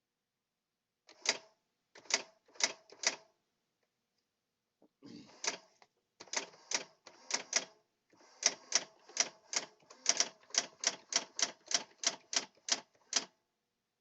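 Brother Correctronic GX-6750 electronic daisy wheel typewriter printing as it is typed on: a series of sharp clacking strikes. Four come first, then a pause, then a quicker run of about fifteen at roughly three a second.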